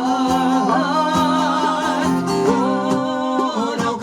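Live country band music between sung lines: guitar accompaniment under a held melody line that wavers in pitch.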